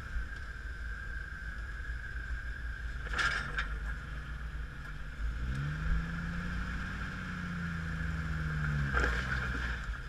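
Rock-crawling Jeep's engine running at low speed under load, its revs rising a little past halfway and holding for about three seconds as the tire climbs a boulder, then dropping back.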